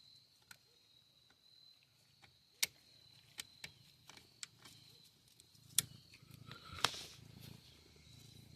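Scattered sharp clicks and light metal knocks of hand tools working on the rusted front hub of a 1986 Chevy K5 Blazer, the loudest about a third of the way in and again twice past the middle, over a faint steady high-pitched tone.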